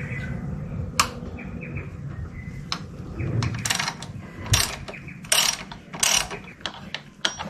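Socket ratchet wrench on a 14 mm bolt, clicking in a series of short strokes from about three seconds in as the motorcycle's footrest mounting plate bolt is worked loose. A single sharp click comes about a second in.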